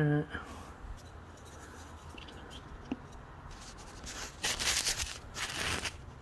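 Plastic pour spout of a cardboard bag-in-box oil carton being handled: a single click about three seconds in, then two short bursts of rubbing and scraping near the end.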